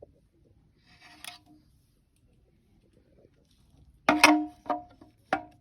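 Four sharp knocks with a short ringing tone in quick succession about four seconds in, from hard engine parts or tools being handled and knocked together. A faint rustle and click come about a second in.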